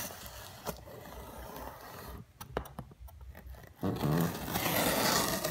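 A folding knife blade slicing along the plastic packing tape of a cardboard box: a scraping rasp, with a few light clicks around the middle and the loudest, longest cut in the last second and a half.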